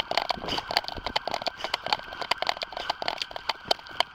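Body-worn police camera rubbing and knocking against the wearer's uniform and gear as he runs: an irregular, crackling rustle of many small clicks and scrapes.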